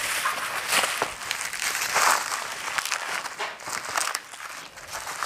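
Plastic bubble wrap crinkling and rustling as a cardboard box wrapped in it is tilted and turned by hand, with light scrapes and small knocks of the box.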